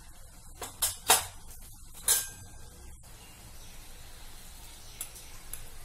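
A metal spoon clinking against steel kitchen utensils as spice powder is spooned out. Three quick taps come in the first second, then a single clink about two seconds in that rings on briefly, followed by faint hiss.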